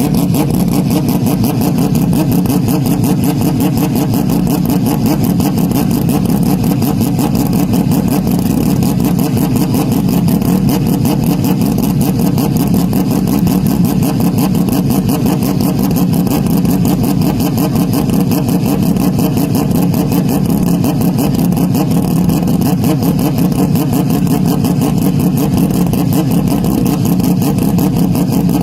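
Loud, heavily distorted engine-like drone that holds one steady pitch and level, with no rise or fall of a car passing by.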